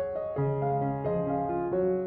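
Background piano music: a gentle melody with new notes about four times a second over sustained lower notes.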